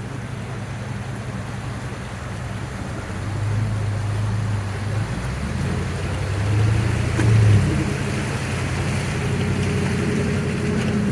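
Off-road 4x4's engine running at low speed on a trail, its note swelling about three seconds in and again around seven seconds, with a brief knock near the louder part.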